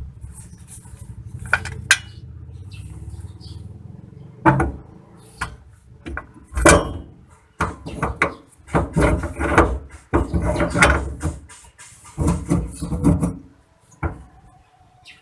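Metal tools clanking and knocking in irregular bursts, with a low rumble and a few sharp clicks before the clatter starts.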